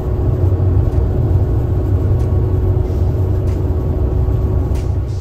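A vehicle running with a steady low rumble and a faint steady hum.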